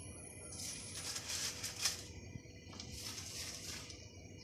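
Pot of water at a rolling boil while dry spaghetti is broken in half and dropped in, with one sharp snap standing out about two seconds in.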